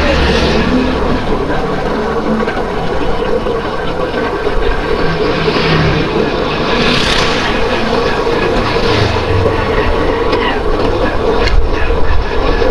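Road traffic noise: a steady engine hum with low rumble, and several vehicles swelling past.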